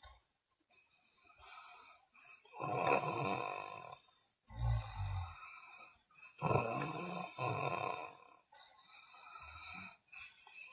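A person snoring: loud rasping snores about every two to three seconds, the first one followed by a short low rumble, the last one quieter.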